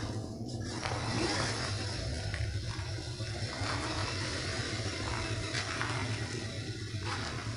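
MN 99 1/12-scale RC off-road truck driving through rainwater puddles: water splashing and sloshing over the steady hum of its motor and gears.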